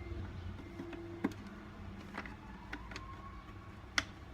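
A few sharp clicks and knocks of the Henry vacuum cleaner's plastic parts being handled and pushed back into place, the loudest near the end, over a low steady hum.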